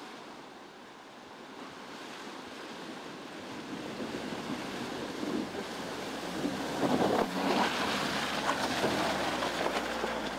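Water rushing and splashing around the wheels of a Land Rover Freelander 2 SUV as it fords a shallow stream, growing louder as it comes close and loudest in the second half, with the low sound of its engine underneath.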